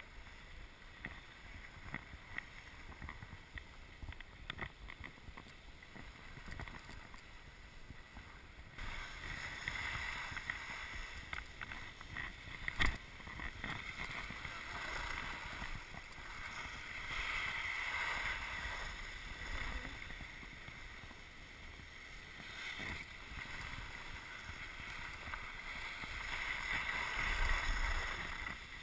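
Skis sliding and scraping over snow, a hiss that gets louder about nine seconds in and then swells and fades several times, with wind on the microphone. A single sharp knock about thirteen seconds in.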